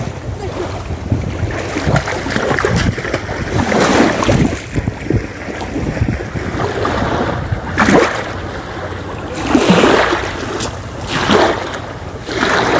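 Sea waves washing onto a beach, swelling and falling back in several surges, with wind buffeting the microphone underneath.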